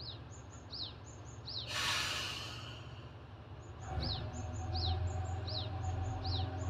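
Ibara Railway IRT355 diesel railcar: a short air hiss about two seconds in, then from about four seconds its engine powers up with a steady low drone and hum as it gets ready to pull away. A bird repeats a high, falling chirp throughout.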